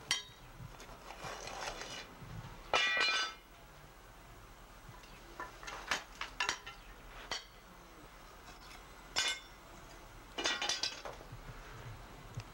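A metal hand tool striking metal debris: scattered sharp metallic clinks and clanks, a few of them ringing briefly, with the strongest strike about three seconds in and a quick cluster near the end.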